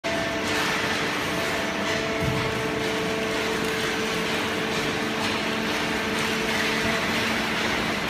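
Hydraulic horizontal cardboard baler and its feed conveyor running: a steady machine hum with several held tones over a constant mechanical noise.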